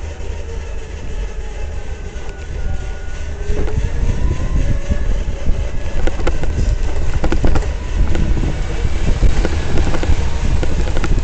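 Skyboard BR60 electric tricycle being ridden, with wind rumbling on the microphone and a faint motor whine rising and falling. From about halfway in, a rapid clicking and rattling sets in and grows denser. This is the kind of extraneous noise that is a fault on a nearly new tricycle.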